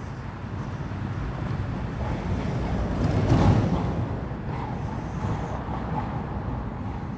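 Road traffic rumble with a vehicle passing close by, its engine and tyre noise building to a peak about halfway through and then fading.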